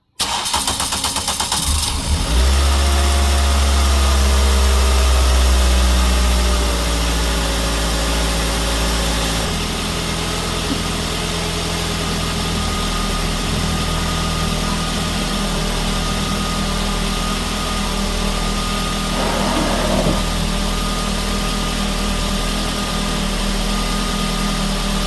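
A 2005 Ford Focus four-cylinder engine is cranked by the starter and catches about two seconds in. It runs at a loud, fast idle, then settles to a lower, steady idle about nine seconds in. The engine has just been restarted after an oil pressure switch replacement, to check for leaks.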